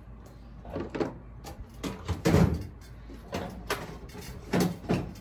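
Metal hand tools being handled on a workbench: a run of about ten irregular knocks and clacks, the loudest near the middle, over a low steady hum.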